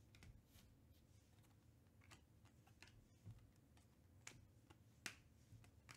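Near silence with a few faint, scattered clicks and slides of glossy Panini Prizm baseball cards being thumbed off a stack one at a time.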